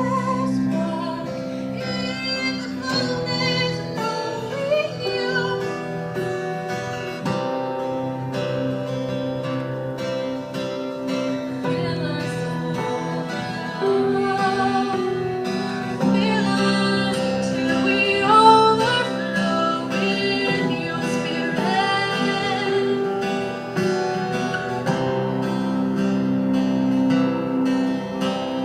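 Music: instruments including plucked strings, with a sung melody line.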